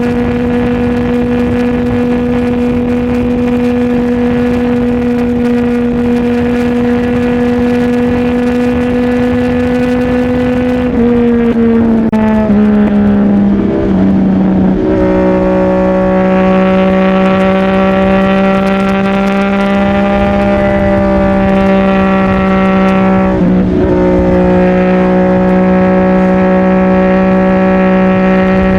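CFMOTO 675NK's three-cylinder engine running through a titanium full-system exhaust as the bike is ridden. The engine note holds steady, then drops in pitch in several quick steps from a little over a third of the way in, like successive gear changes. It then holds a lower, slightly louder note, with a brief dip in pitch near the end.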